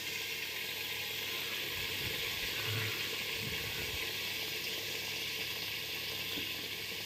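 Chicken curry simmering in its thick masala in the pot, a steady sizzling hiss with a few faint low knocks in the middle.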